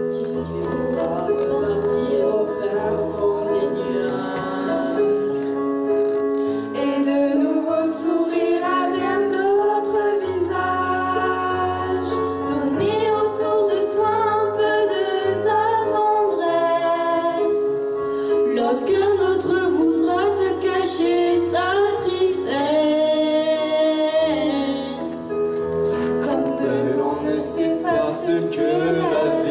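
A teenage choir singing a song together over instrumental accompaniment of sustained chords and a bass line.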